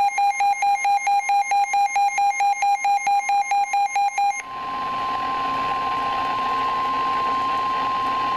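A weather radio alert: rapid, buzzy electronic beeping at about five beeps a second, then, about four and a half seconds in, the steady 1050 Hz NOAA Weather Radio warning alarm tone over radio hiss. This is the signal that a warning message is about to be broadcast.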